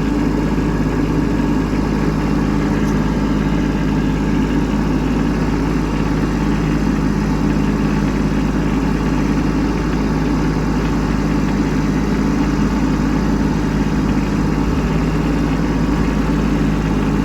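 Kubota B2601 compact tractor's three-cylinder diesel engine running at a steady speed while the tractor pushes snow.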